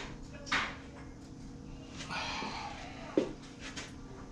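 A man's heavy breaths, two hard exhales, as he lifts a motorcycle cylinder head, with one sharp clink about three seconds in and a faint steady hum underneath.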